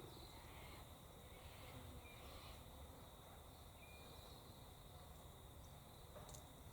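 Near silence: faint outdoor ambience with a steady faint high-pitched hum and a couple of faint short chirps.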